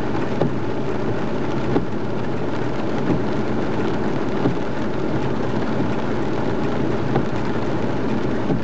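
Steady noise inside a moving car, road and engine noise mixed with heavy rain on the body and windscreen, with a light knock about every second and a half.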